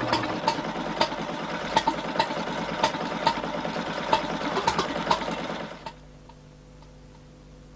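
Restored vintage stationary engine running, a steady clatter with sharp, uneven knocks. The sound cuts off suddenly about six seconds in, leaving faint, regular ticking.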